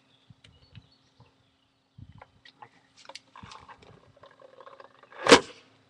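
Homemade airsoft cannon firing once: a single loud bang about five seconds in, after a few faint handling clicks and rustles.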